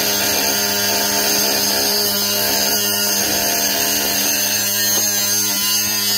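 Snap-on 14.4 V cordless inline die grinder with a cutoff wheel running and grinding through square metal tubing, a loud steady whine with grinding noise. It cuts off suddenly at the end, when the tool's overload safety shutoff trips under cutting pressure.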